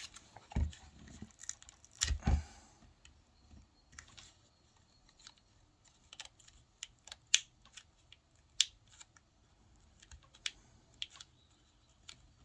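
Light plastic clicks and taps of laptop parts being handled during disassembly, scattered irregularly, with two duller knocks about half a second and two seconds in.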